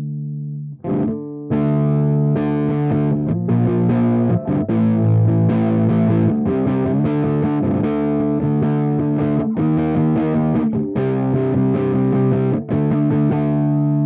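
Electric guitar played through a DIY JFET copy of a Model T amp emulator pedal, giving a thick distorted amp tone. A held chord is cut off just under a second in. Riffing starts about a second and a half in, with short stops, and ends on a sustained ringing chord near the end.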